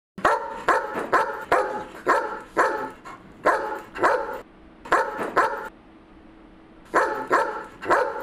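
A dog barking in quick runs: about seven barks at roughly two a second, then pairs of barks with short pauses between them.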